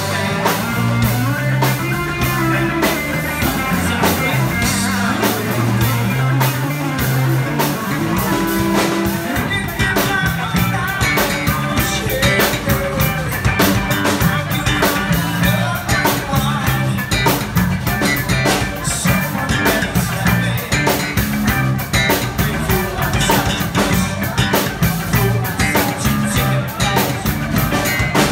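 Live band playing a song: a singer on microphone over electric guitars and drums, with a steady beat.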